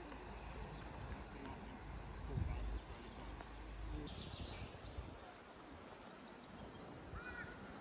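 Faint outdoor ambience: wind rumbling on the microphone for the first few seconds, with a gust about two and a half seconds in, then a few bird chirps, a couple of short curling calls near the end.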